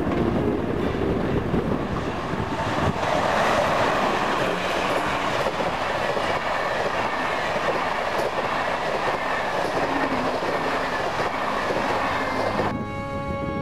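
Passenger train rolling past on the line, a steady rushing rumble that is loudest about three to four seconds in. Near the end it gives way to music.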